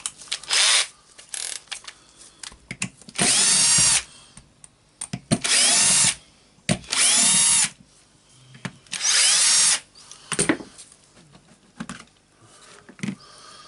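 Cordless drill-driver run in short bursts to back out screws: about six whirs, each spinning up and winding down, the longest nearly a second, with light clicks of handling between them.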